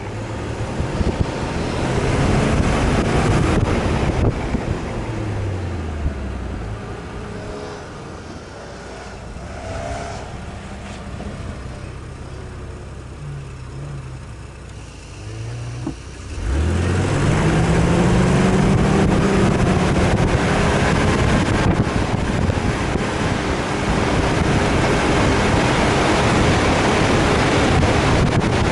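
Off-road 4x4 engine slowing to a low, steady hum for about ten seconds, then revving up sharply about two-thirds of the way through and pulling hard, with wind rushing over the microphone.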